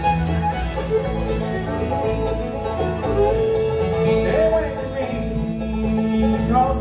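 Acoustic bluegrass band playing an instrumental lead-in: fiddle, banjo, acoustic guitar, mandolin and upright bass together, with no singing yet.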